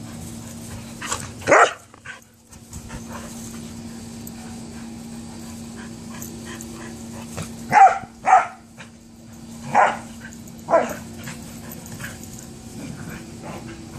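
Dogs playing rough, with short sharp play barks: one about a second and a half in, a quick pair near eight seconds, then single barks near ten and eleven seconds.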